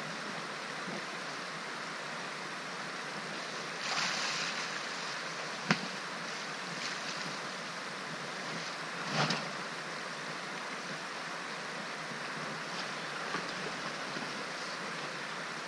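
Steady rush of a fast river flowing over rapids, with a sharp click about six seconds in and a couple of brief rustling swells.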